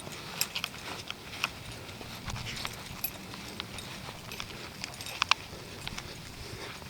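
Footsteps on a hard surface: irregular sharp clicks and knocks, the loudest pair about five seconds in.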